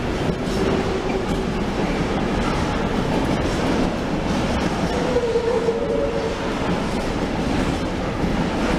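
Container freight train's wagons rolling steadily past, with wheels running over the rails and clicking at the rail joints.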